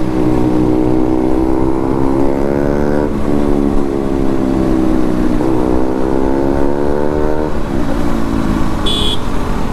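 Motorcycle engine accelerating hard through the gears: its pitch climbs, drops at an upshift about three seconds in and again about five seconds in, climbs once more and falls away after about seven and a half seconds. A short high-pitched beep sounds near the end.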